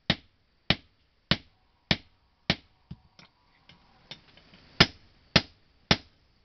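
A blacksmith's hand hammer striking a sickle blade in a steady rhythm, about one and a half blows a second. Around the middle the blows give way to a few lighter taps, then the full blows resume.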